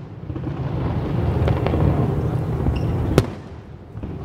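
Aerial firework shells bursting: low rolling booms and rumble, with a sharp crack about three seconds in.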